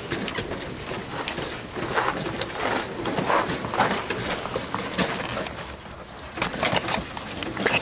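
Home-built wooden dog carpet mill turning under a walking dog: the duct-taped carpet belt rolls over bearing-mounted rollers with a steady rolling noise and many small clicks and knocks from the rollers, frame and paws.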